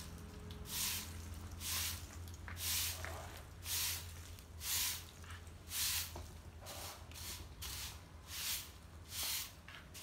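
Long-handled broom sweeping leaves across tiled paving: about ten swishing strokes, roughly one a second.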